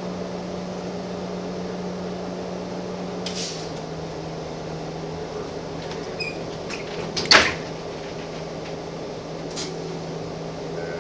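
Gillig Phantom transit bus's diesel engine idling steadily, heard from the driver's cab, its hum dropping slightly in pitch a few seconds in. A few light clicks and one loud sharp click about seven seconds in.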